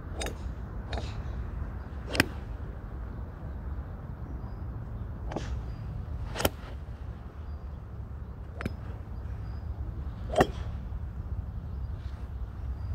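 Golf clubs striking golf balls on a driving range: about seven sharp clicks of impact, irregularly spaced a second or a few seconds apart, some louder and closer than others, over a steady low rumble.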